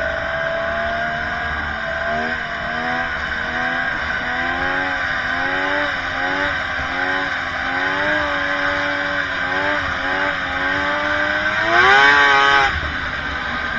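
Snowmobile engine running at speed, its pitch rising and falling with the throttle. About twelve seconds in it revs up sharply and louder with a burst of hiss, then drops back under a second later.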